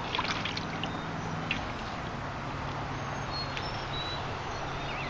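Outdoor waterside ambience: a steady low hum under a faint rushing background, with a few small clicks near the start.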